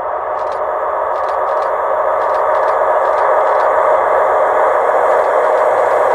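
Approaching electric freight train, a locomotive hauling container wagons: a steady rolling hiss of wheels on rails that grows gradually louder, with faint high ticks over it.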